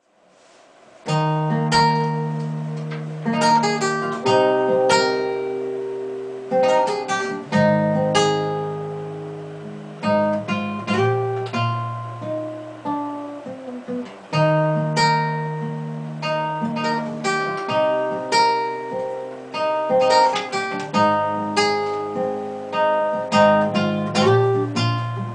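Acoustic guitar playing an instrumental intro of plucked and strummed chords over held bass notes, coming in about a second in.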